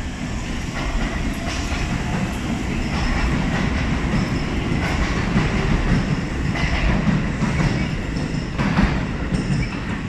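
Keio electric commuter train running along the track past the platform, with a steady low rumble and wheels clacking over rail joints several times.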